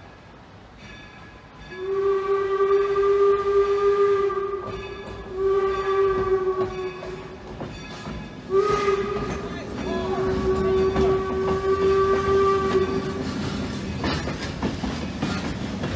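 Steam locomotive whistle sounding the grade-crossing signal: two long blasts, a short one and a long one, on one steady pitch. Near the end the train's passenger-car wheels click and rumble over the crossing.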